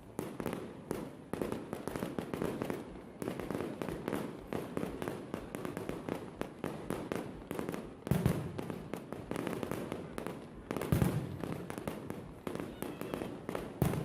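Fireworks display: continuous rapid crackling and popping of bursting shells, with two louder booms about 8 and 11 seconds in.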